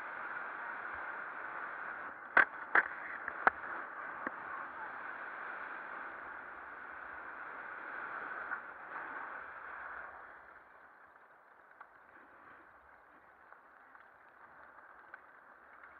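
Skis sliding and scraping over packed snow, a steady hiss, with a few sharp clicks about two to three and a half seconds in. It grows quieter about ten seconds in.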